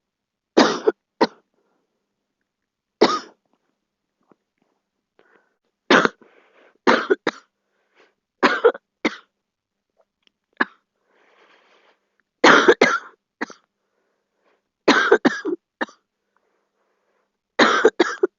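A girl coughing over and over: single coughs and quick bouts of two or three, with short silent pauses between them.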